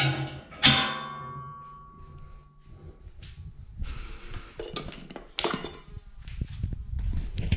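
Metal struck against metal: a sharp blow that rings on for over a second, followed by a few lighter knocks and clinks.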